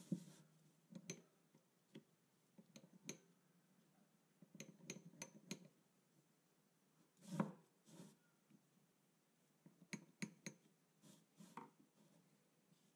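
Faint, scattered clicks and light metal knocks as the surface gauge's steel base block is handled, turned over and set down on the workbench, with one louder knock about seven seconds in.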